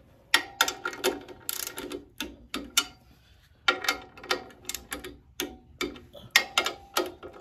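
Ratcheting torque wrench clicking in short runs of quick metallic clicks as its ratchet is worked back and forth on the clutch pressure plate bolts, which are being tightened to 18 foot-pounds.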